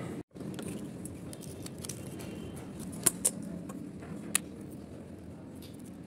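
Sand sprinkled by hand onto seashells in a fridge-magnet base: a faint steady hiss with three sharp little clicks, two close together about three seconds in and one more about a second later.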